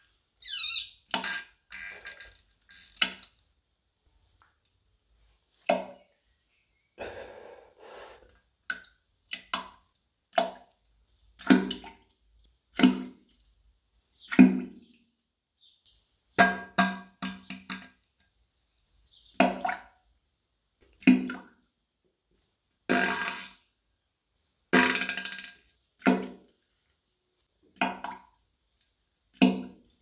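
A string of short comic toilet sound effects: farts and turds plopping into toilet water, about twenty separate sounds, each under a second, with dead silence between them.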